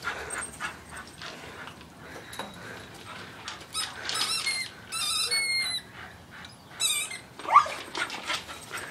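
Dog whining and squealing in short high-pitched bursts, several times, with a loud rising yelp near the end.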